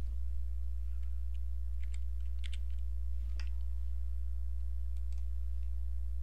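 A few faint computer keystrokes and mouse clicks, the sharpest about three and a half seconds in, over a steady low electrical hum.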